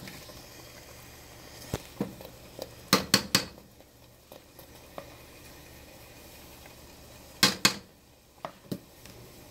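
A cooking spoon stirring ground pumpkin seeds frying in oil in a nonstick frying pan, knocking and scraping against the pan. The loudest sharp clinks come in clusters about three seconds in and again about seven and a half seconds in.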